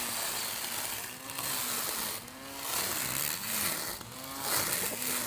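Small lawn mower's motor running, its pitch repeatedly rising and falling about once a second, typical of the blade loading and unloading as it cuts.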